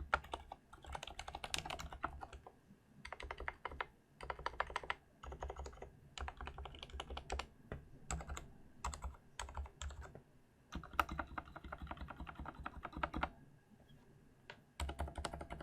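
Mechanical keyboard with Cherry MX Silent Red switches (Mstone Groove T SF) being typed on in fast runs of keystrokes, broken by short pauses. A longer pause comes near the end, then one last short burst of typing.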